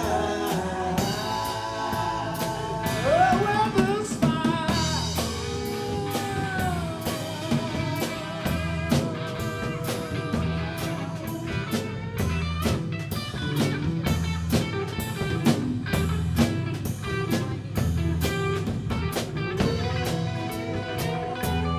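Live band playing blues-rock: an electric guitar lead with a sharp string bend about three seconds in and a long held note with vibrato, over a drum kit keeping a steady beat.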